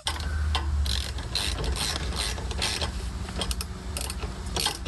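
Hand ratchet clicking in repeated short strokes, about two or three a second, over a steady low hum, as bolts are worked on during a car shifter swap.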